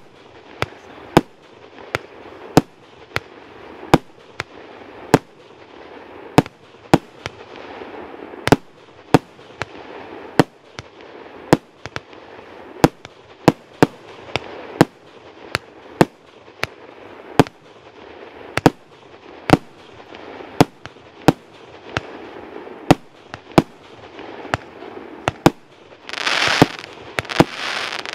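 A 48-shot, 40 mm firework cake firing shot after shot: sharp bangs at a steady pace of roughly one to two a second, with a hiss between them. Near the end a dense crackling burst comes in, from the cake's crackle effects.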